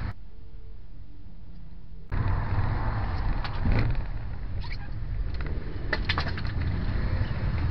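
Dash-cam audio from inside a car driving on a wet road: a steady low rumble of engine and tyres with hiss. It is quieter at first and steps up suddenly about two seconds in, with a few short clicks or taps in the middle and later.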